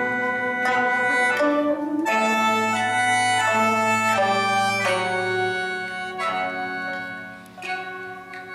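Chinese traditional ensemble music: a vertically held Chinese wind pipe plays a melody over sustained sheng mouth-organ chords, with sharp plucked-string notes. The music softens briefly near the end.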